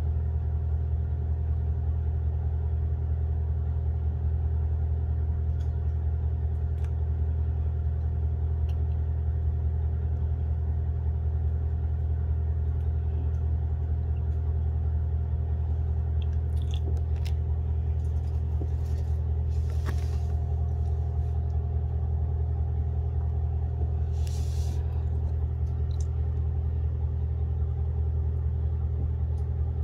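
A steady low machine hum with faint steady overtones, and a few faint clicks and two brief soft hisses in the latter half.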